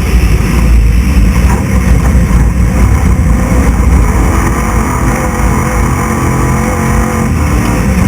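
Off-road race truck's engine running hard at speed, its pitch rising and falling with the throttle, under loud, steady road and wind noise.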